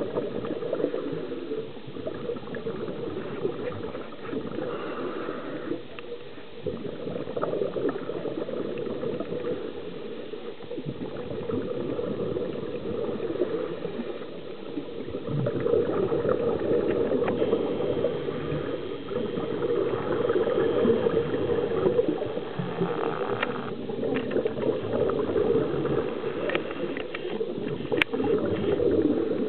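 Underwater water noise picked up by a camera in its waterproof housing: a continuous rushing, bubbling sound with scattered small clicks, growing somewhat louder about halfway through.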